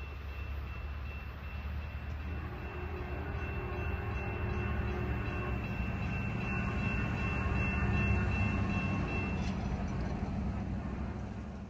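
Amtrak passenger train rumbling out of sight, a steady low rumble that slowly builds for most of the stretch, then eases. Over it a thin, steady high-pitched ringing tone stops a little before the end.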